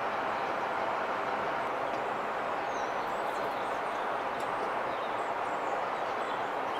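Steady, even rushing background noise that does not change, with a few faint high chirps about three to four seconds in.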